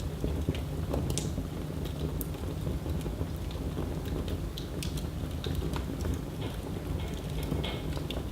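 Fire in a fireplace crackling: irregular sharp pops and snaps over a steady low rumble of the flames.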